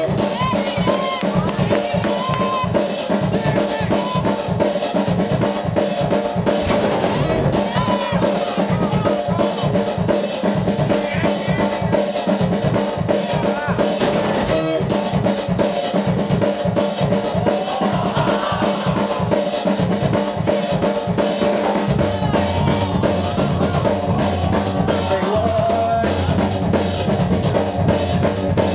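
Drum-heavy breakbeat music played by the DJ over the club's sound system: a steady kick-and-snare beat, with a deep bass line coming in about three quarters of the way through.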